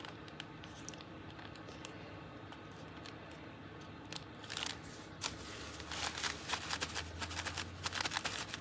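Paper rustling and scraping under hands pressing and rubbing on a journal page: quiet at first, then dry scratchy strokes from about four seconds in that come thicker and faster toward the end.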